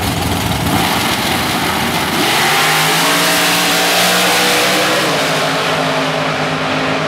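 Two drag-race vehicles, a Chevy S10 drag pickup and a black Pontiac Firebird drag car, launching from the start line at full throttle about two seconds in. Their engines run loud, the pitch climbing as they accelerate away down the strip.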